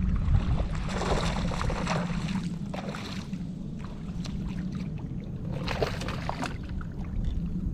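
Water splashing and sloshing at the side of a kayak in a few bursts, over a steady low rumble.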